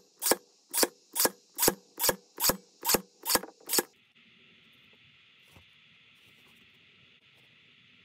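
Staple gun firing staples into cork board, about nine sharp shots at a little over two a second. They stop about four seconds in.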